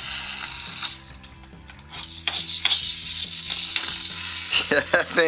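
Toy motorbike's wheels revved against a tabletop and then let go to scoot along: a whirring rasp that drops away about a second in and comes back about two seconds in.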